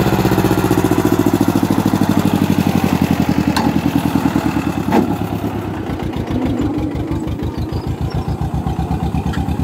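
Eicher tractor's diesel engine running under load as it tows a trolley of soil past at close range, with an even pulsing beat. A brief sharp click about five seconds in.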